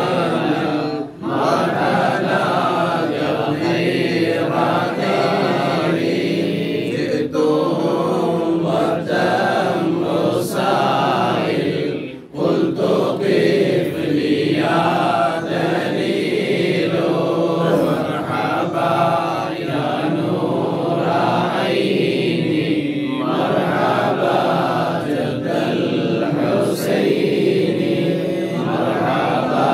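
Men's voices chanting a devotional moulid recitation in praise of the Prophet in a steady, sung unison, led by one voice reading from a booklet. It pauses briefly twice, about a second in and again about twelve seconds in.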